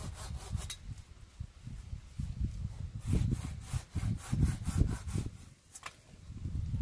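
Silky Big Boy 2000 folding pull-stroke hand saw cutting through a branch of green wood in quick back-and-forth strokes. The sawing stops briefly about five and a half seconds in, then starts again.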